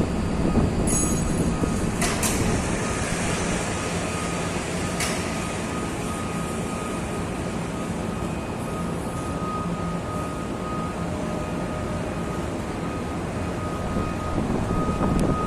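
Heavy machinery engine running steadily, with a low hum and a faint steady whine, while a counterweight is being fitted to the backhoe. A few short knocks come in the first five seconds.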